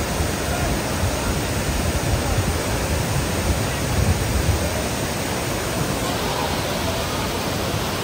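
Cascading waterfall: a steady rush of water spilling over mossy rock ledges, with a low rumble under it.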